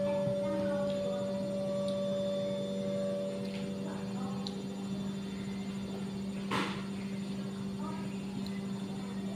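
Steady low hum with a few faint, brief sounds over it, and one sharp click about six and a half seconds in.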